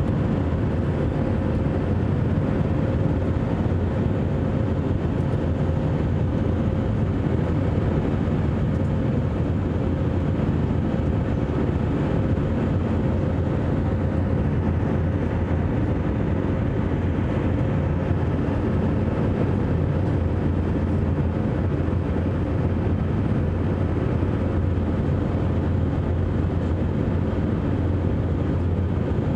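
Airliner cabin noise in flight: the steady low rumble of the jet engines and airflow, with a faint steady hum above it.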